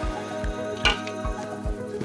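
Background music with a steady beat: a low drum about two and a half times a second under sustained chords, and one sharper hit a little under a second in.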